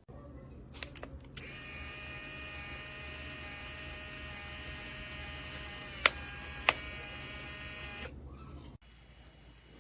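A small electric motor running steadily for about seven seconds, with a few light clicks as it starts and two sharp loud clicks a little over half a second apart shortly before it stops.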